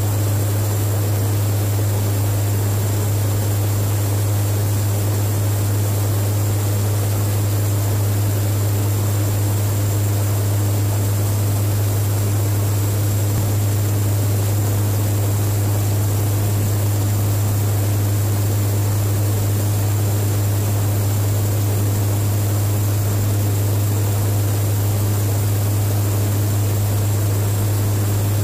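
Turboprop engines of a KC-130J Hercules tanker heard from inside its cabin in cruise flight: a steady, loud drone dominated by a deep propeller hum with an even hiss over it.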